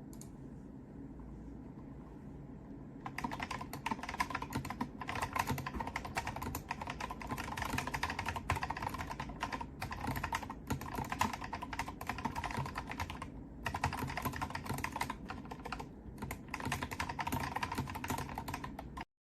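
Typing on an Akko 5075S mechanical keyboard with Wine Red switches and XDA-profile PBT keycaps: a fast, dense run of keystrokes begins about three seconds in, with a couple of short pauses, and cuts off abruptly near the end.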